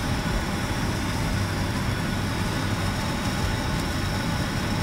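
Steady cabin hum inside an Airbus A320 parked at the gate: the air-conditioning ventilation and aircraft systems running constantly, with a low drone.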